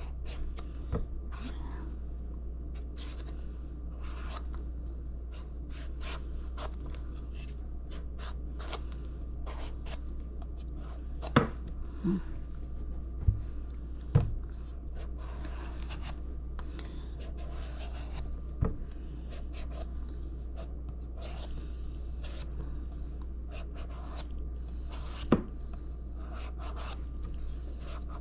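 Knife peeling and cutting a mango: many short, soft scraping and cutting strokes, with a few sharper knocks scattered through.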